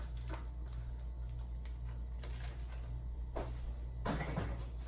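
Handling of a vacuum-packed steak and its cut-open plastic wrapping over a stainless steel pan: a few light clicks, then a louder rustle and knock near the end, over a steady low hum.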